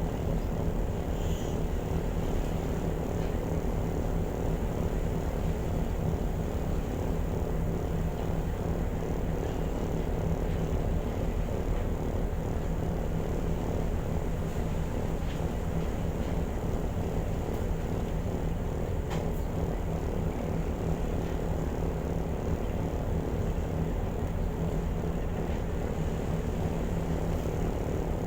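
A ferry's engines running at a steady drone: a constant low hum with a rush of noise over it that does not change.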